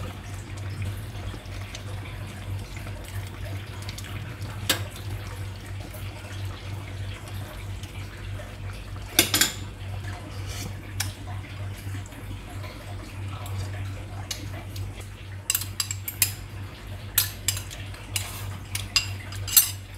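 Kitchen pots, dishes and utensils clinking and clattering, a few scattered knocks at first and a quicker run of clinks in the last few seconds, over a steady low hum.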